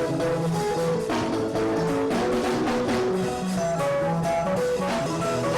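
Band music mixing traditional Central African instruments with modern ones, with held melodic notes over a drum beat.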